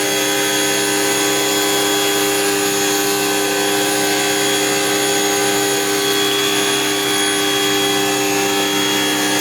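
Electric drain-cleaning machine running steadily, its motor holding one even pitch.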